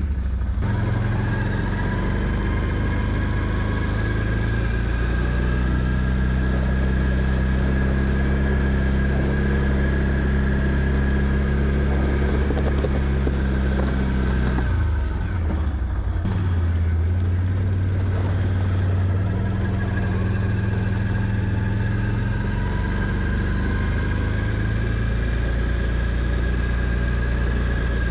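Can-Am Outlander 650 ATV's V-twin engine running steadily while plowing snow, with a steady high whine above it. About halfway through the engine speed drops and then picks up again.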